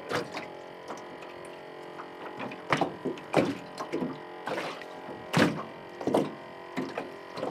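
Irregular hollow knocks and thumps on a small fishing boat, about ten in seven seconds, with the loudest a little under halfway through and again past the middle.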